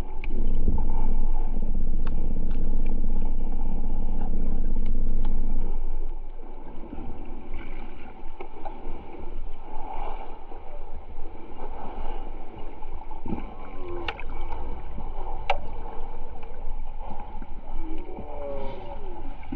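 Underwater ambience picked up by a camera: a steady low rumble for about the first six seconds, then quieter, uneven water noise with a few bubbly warbles and a couple of sharp clicks.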